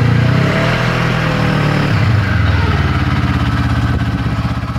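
Yamaha snowmobile engine running at low speed on the trail; its note drops about two seconds in and then holds steady.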